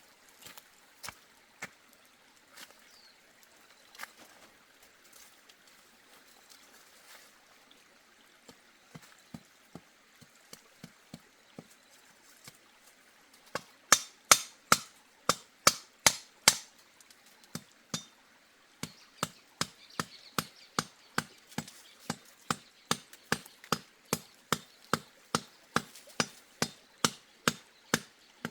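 Hammer blows, scattered and light at first, then steady hammering at about two blows a second from about halfway, the loudest strikes coming just after it starts.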